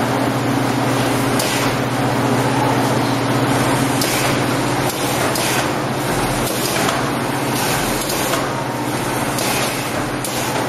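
Skala Maskon VX-8 automatic fish vaccination machine running: a steady mechanical hum with short hissing bursts repeating irregularly, about one every half second to a second.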